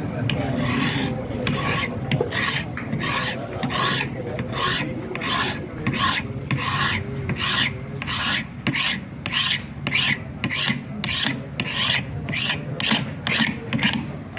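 Rhythmic rasping strokes of a hand tool worked back and forth, about two strokes a second.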